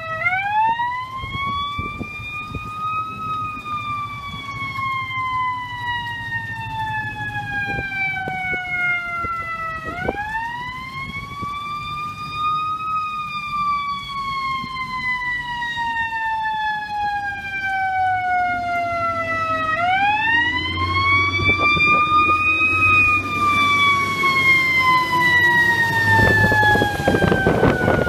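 Fire engine siren wailing, each cycle climbing over a few seconds and then falling slowly, three times about ten seconds apart, getting louder as the truck approaches. Its engine and its tyres on the wet road come up near the end as it passes close by.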